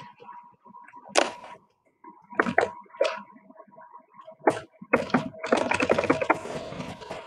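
Computer keyboard being typed on: a few separate keystrokes, then a quick run of keystrokes about five seconds in, over a faint steady tone.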